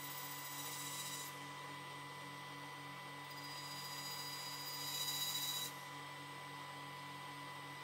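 Bandsaw running with a steady hum, its blade cutting into a wooden leg twice: a short hiss about a second in and a longer, louder one around five seconds in, as tenon cuts are made against a stop.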